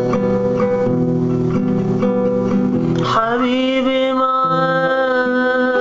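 A song with a strummed plucked-string accompaniment. About three seconds in, a male voice comes in, rising into a long held note on 'habibi'.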